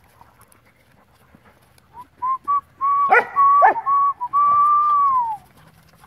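A person whistling: a few short notes on one pitch, then a long held note that drops off at the end. Airedale terriers give two sharp yelps in the middle of it.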